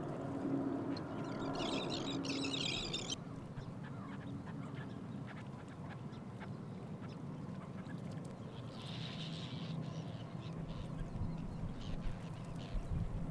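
Ducks quacking, with a brief burst of higher-pitched noise about two seconds in.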